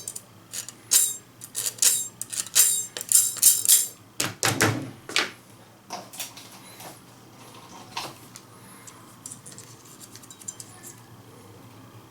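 A file rasping back and forth over the rusted battery contacts of a TV remote, scraping off corrosion from leaked batteries: quick repeated strokes for about the first four seconds. Then a single handling knock and a few faint clicks.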